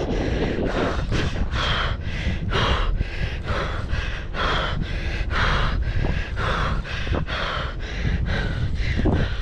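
A man panting hard, about two breaths a second, out of breath from fighting a big fish, over a steady low rumble of wind on the microphone.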